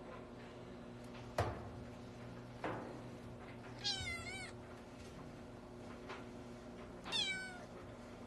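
A cat meowing twice, two short high-pitched meows about four and seven seconds in. Before them come two sharp knocks, the first, about a second and a half in, as loud as the meows, all over a steady low hum.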